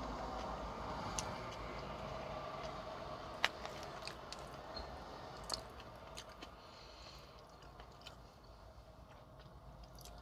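Close-up chewing and mouth sounds of someone eating, with a scatter of sharp clicks, the loudest about three and a half seconds in.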